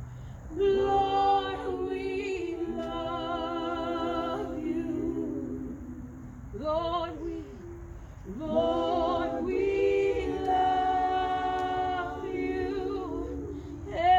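Unaccompanied worship singing, with no instruments: slow phrases of long held notes sung with vibrato, in two long phrases and a short one between them.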